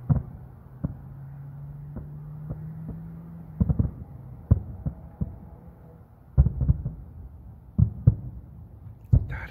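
Aerial fireworks going off some way off, heard as about a dozen dull booms at irregular intervals, several in quick pairs. A faint steady low hum runs underneath.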